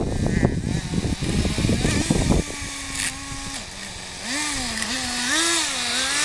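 Small two-stroke nitro glow engine (.11 size) of an RC tracked vehicle. A loud, rough rumble cuts off suddenly about two and a half seconds in. The engine then idles with a steady buzz, drops lower, and is blipped up and down several times before settling back to idle.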